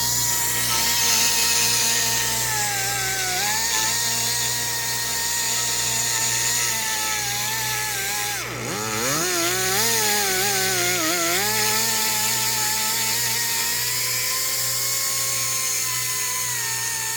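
Air-powered grinder running at a steady high whine with air hiss, grinding caked deposits out of a cylinder head's coolant ports. Its pitch sags as it is pressed into the work, dropping sharply about eight seconds in before picking back up.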